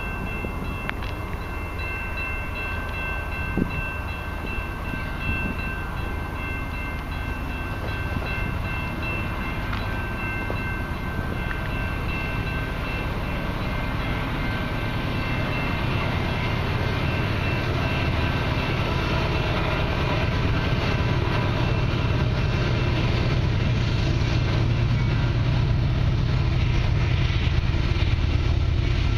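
Diesel freight locomotives (GE AC4400CWs) approaching unseen, a steady low rumble that grows gradually louder, heaviest in the second half. Faint steady high ringing tones sound over the first half and fade.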